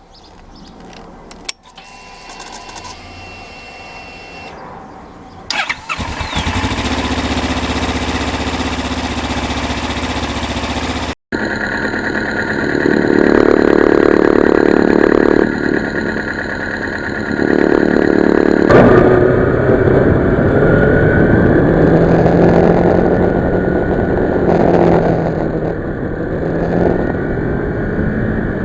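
A motorcycle engine starts about five and a half seconds in and runs. After a short break it is revved and runs under way, its pitch rising and falling.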